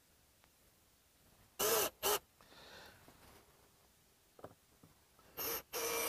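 Cordless drill/driver turning a screw into a doorbell mounting bracket on a door frame, run in short trigger bursts: two brief bursts about a second and a half in, then a longer run of about a second near the end.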